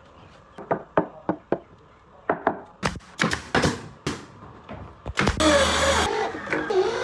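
Wooden panels of a speaker box being knocked and tapped during assembly: a string of irregular, sharp wooden knocks. About five seconds in comes a brief loud burst of hiss-like noise, followed by wavering tones.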